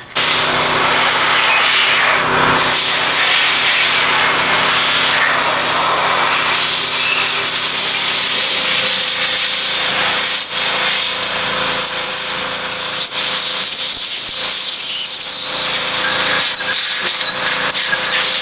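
Water spray hosing down a degreased engine block: a loud, steady hiss that starts abruptly and cuts off suddenly near the end. This is the rinse after the degreaser soak.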